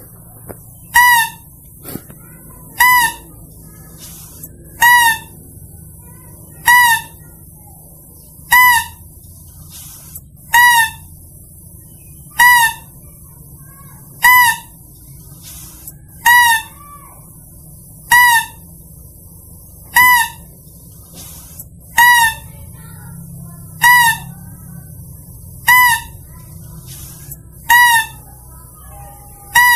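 Mouse-deer (kancil) lure call: the same short, loud, pitched cry repeated at an even pace, about once every two seconds, with a faint steady hum between the calls.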